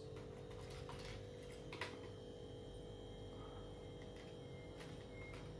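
A few faint clicks and light taps of small fountain-pen parts being handled and fitted together, the clearest about two seconds in, over a steady low hum.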